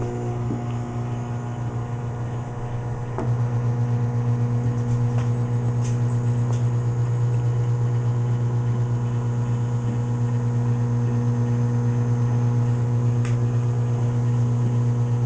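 Microwave oven running: a steady low hum with higher overtones, stepping up in loudness about three seconds in, with a few faint clicks.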